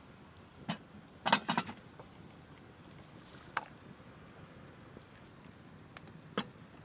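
Light clicks and clinks of a glass teapot being handled: its hinged lid clicking shut, with a cluster of clinks about a second and a half in, then a knock near the end as the pot is set down on top of a metal kettle. A faint steady background noise lies underneath.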